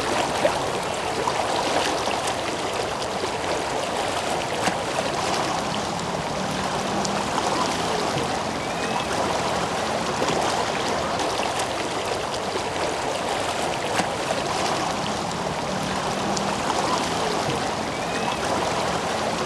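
Swollen floodwater rushing steadily past, a river in spate after extremely heavy rain. Two faint short high chirps rise over it.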